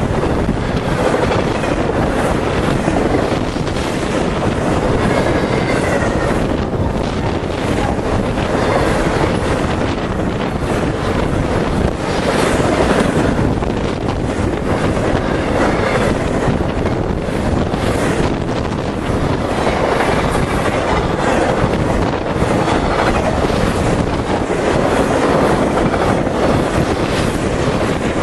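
Intermodal freight train of highway trailers on flatcars passing close by at speed: a steady, loud rumble and clatter of the cars' steel wheels on the rails.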